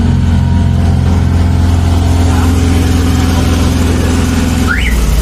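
Engine of a van-mounted 350-bar high-pressure drain jetter running loud and steady with a pulsing beat. Near the end its note drops as it slows, with a short rising squeak.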